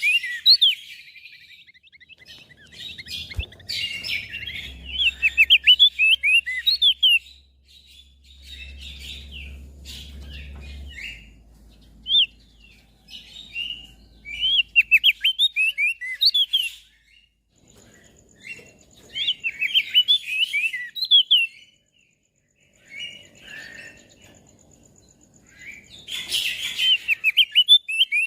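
Crested white-eye (opior jambul) singing: bursts of rapid, high chirping notes a second or two long, broken by short pauses.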